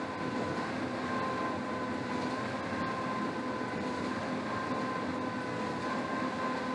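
Air-resistance rowing machine's fan flywheel whirring steadily as it is rowed, with a steady hum in it.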